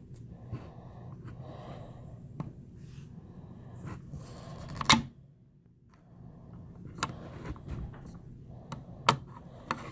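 Handling clicks and knocks on a bolt-action rifle over a low room murmur. The loudest knock comes about five seconds in. Near the end come sharp metallic clicks as the bolt is lifted and drawn back to open the action.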